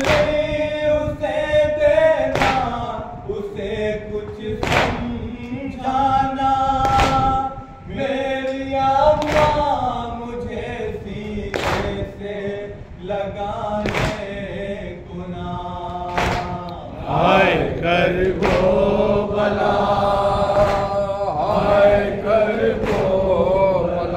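Male voices chanting an Urdu noha (lament): a lead reciter on a microphone with others joining in. Sharp slaps of hands on chests (matam) land in time with the chant about every two and a half seconds, clearest in the first half.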